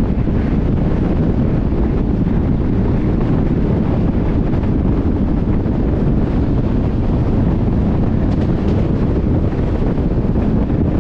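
Steady wind noise on the microphone over the low, even rumble of a moving train.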